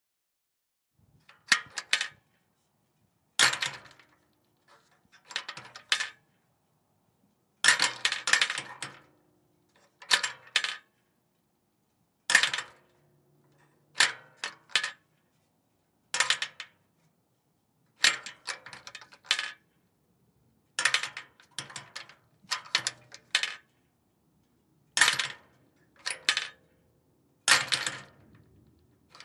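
Metal fence gate being shut and latched, over and over: each close is a sharp metallic clank followed by quick clicks and rattles of the latch, with a brief ring. The takes come about every two seconds, separated by silence.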